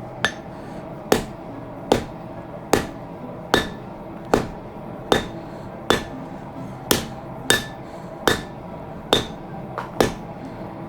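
Steady, evenly paced hand-hammer blows on hot leaf-spring steel over an anvil, a little more than one strike a second, each with a short metallic ring. This is the rhythm of drawing out a sword blank.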